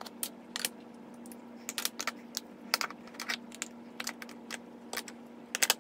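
Blush compacts being clicked open, handled and set down on a tabletop: a string of sharp, irregular clicks and taps.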